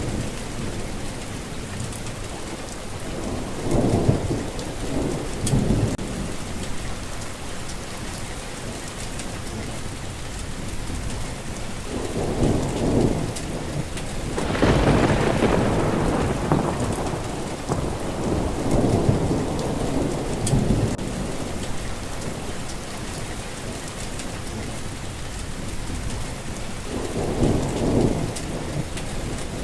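Steady rain with rolling thunder. Several rumbles swell and fade, the loudest and sharpest about fifteen seconds in, with smaller ones around four, twelve, nineteen and twenty-seven seconds.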